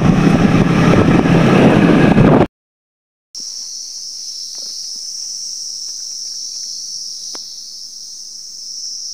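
Wind rush and engine noise from a TVS scooter being ridden, which cuts off suddenly about two and a half seconds in. After a brief gap, a steady high-pitched insect drone with a couple of faint clicks.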